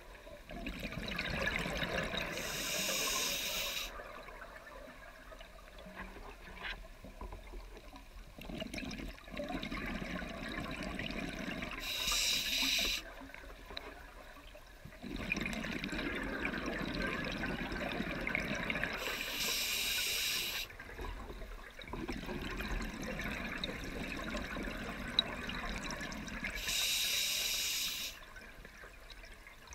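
Scuba diver breathing through a regulator: four short hissing inhalations, each followed by a longer rush of exhaled bubbles, about one breath every seven to eight seconds.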